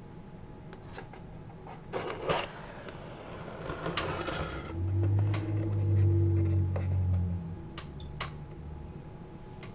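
Cardboard pizza box being handled and its lid lifted open: scattered taps, a sharp cardboard rustle about two seconds in and more rustling after it, then a few light clicks near the end. A low steady hum runs for about two and a half seconds in the middle and is the loudest sound.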